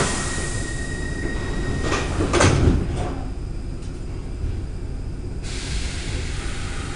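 Sliding doors of a Stockholm Metro C6 train closing at a station: a click, a steady high tone that stops about two seconds in, then the doors bang shut. A steady hiss starts near the end.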